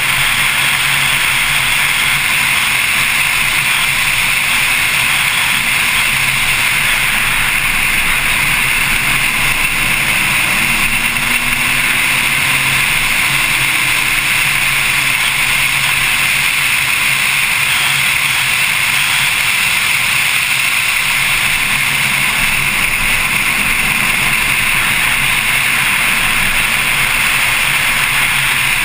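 Steady rush of wind and road noise over a hood-mounted camera on a Porsche 911 Carrera S at track speed. The rear flat-six engine is faintly heard underneath, its note rising and falling slightly about a third of the way in.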